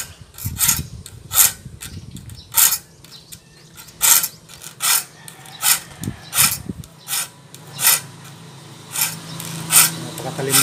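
Hand file rasping across the steel teeth of a wood handsaw clamped in a vise, about one short stroke a second: the saw's dull teeth being sharpened with a sharp file that bites well.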